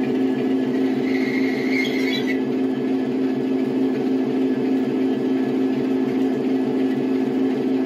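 Sound-fitted model Class 47 diesel locomotive running its recorded diesel engine sound at a steady idle as it draws to a stop, with a brief high squeal about a second in.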